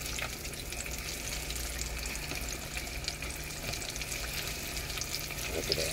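Floured chicken pieces deep-frying in hot oil in a pan: a steady sizzle full of fine, constant crackling.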